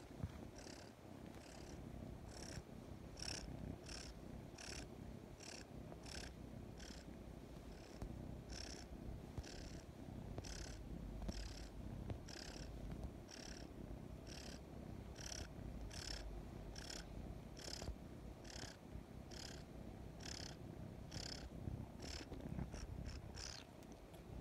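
Young kitten purring steadily while suckling on a blanket, with a soft rhythmic sucking sound about twice a second that pauses briefly about a third of the way in and quickens near the end.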